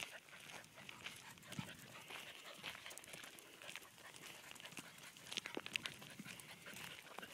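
Two puppies, a German shorthaired pointer and a Dogue de Bordeaux, scuffling together on gravel: faint, scattered crunches and clicks of paws on the stones, with soft dog breath sounds.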